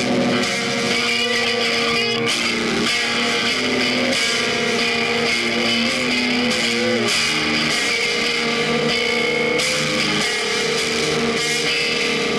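Instrumental music led by guitar, with layered held notes at a steady level; about halfway through a few notes bend briefly up and down.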